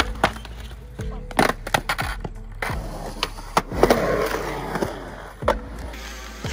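Skateboard on concrete: urethane wheels rolling, broken by a string of sharp clacks and knocks as the deck and trucks hit the ground and ledges, with the board scraping along a metal-edged ledge at the start.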